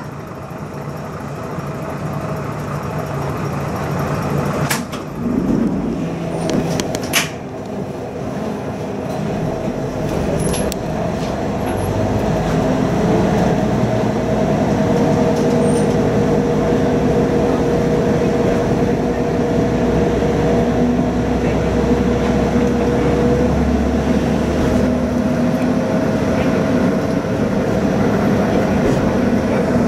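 Diesel railcar engine idling at a station stop, with two sharp knocks a couple of seconds apart, then the engine opens up as the railcar pulls away and runs on at a steady drone, louder than at the idle.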